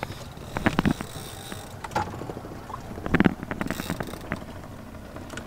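A few irregular knocks and clunks on a fishing boat, the strongest about three seconds in, over a steady low hiss of wind and water.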